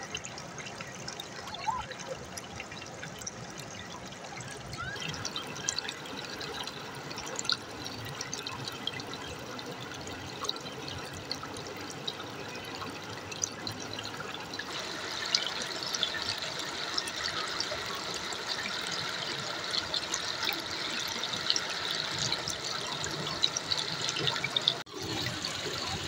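Shallow river water trickling and babbling over and between stones, a steady splashy flow full of small drips and gurgles. It grows louder and brighter about halfway through.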